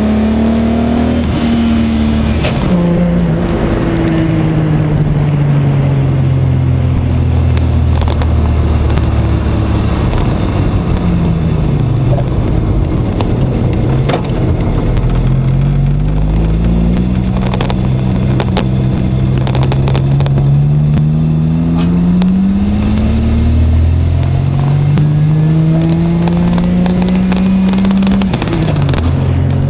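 Holden VN 3.8-litre V6 in a Datsun 1200 ute, heard from the cab while driving. The engine note falls steadily as the ute slows, then climbs as it accelerates away, dipping briefly about two-thirds through and again sharply near the end, where the pitch drops and picks back up as a gear is changed.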